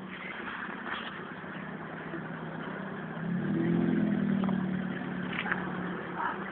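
Vehicle engine humming steadily, growing louder for a few seconds from about three seconds in before easing back.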